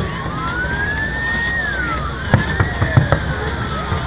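Fireworks going off: a quick run of sharp bangs about two to three seconds in, with a siren wailing slowly up and down behind them.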